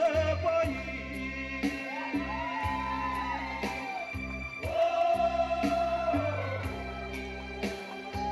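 Music: a voice singing long held, wavering notes over steady low accompaniment, with sharp percussion strikes every second or two.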